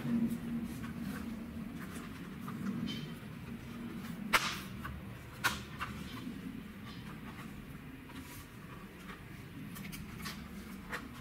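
A few sharp plastic clicks as the plastic back plate of a Dell XPS 12 laptop is pried loose by hand, the loudest about four and five and a half seconds in.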